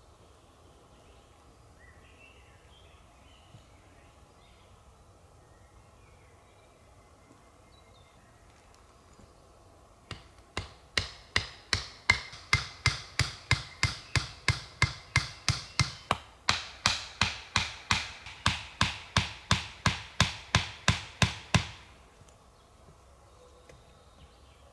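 A fast, even series of sharp knocks, about three a second, starting about ten seconds in, breaking off briefly midway, then going on for about five more seconds before stopping.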